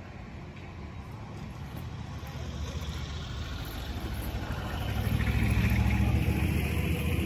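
A motor vehicle's engine running with a low rumble that swells louder about halfway through, as it comes closer.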